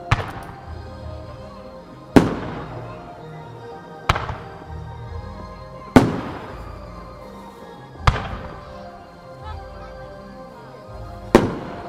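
Aerial firework shells bursting: six sharp bangs roughly every two seconds, each trailing off in an echo, with music playing underneath.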